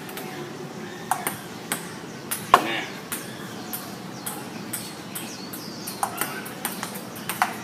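Table tennis rally: a celluloid ping-pong ball clicking off paddles and the table over and over, the sharpest knock about two and a half seconds in.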